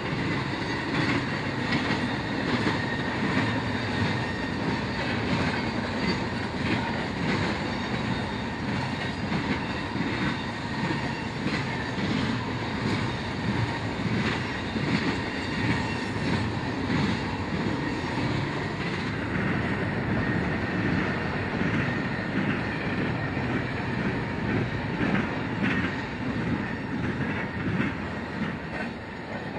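Freight train cars rolling by with a steady clickety-clack of wheels over rail joints and a thin, steady squeal from the wheels, growing quieter near the end.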